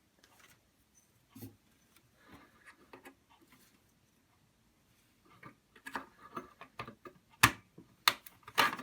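Small hard clicks and knocks of 72-pin SIMM memory modules being handled and seated in motherboard slots: a few faint ones at first, then a run of sharp clicks over the last three seconds.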